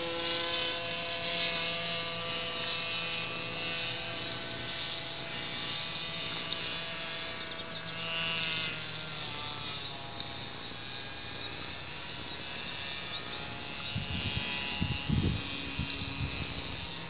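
Model airplane's motor buzzing steadily in flight overhead, its pitch shifting a little about halfway through. Near the end come a few dull knocks and rumbles.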